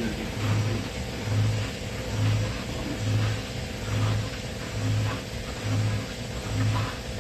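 Mori Seiki CNC machine cutting heat-treated stainless steel. A low hum swells and fades in a steady rhythm a little more than once a second, over constant machine noise.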